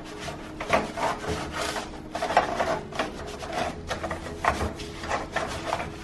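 A soapy sponge scrubbing the inside of a microwave door, its glass and mesh screen, in quick back-and-forth rubbing strokes that start about half a second in.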